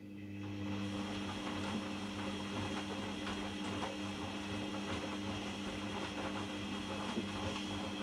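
Hoover Dynamic washing machine starting a rinse tumble: the drum motor starts and settles into a steady hum as the drum turns, with water sloshing and clothes tumbling in a very high rinse water level.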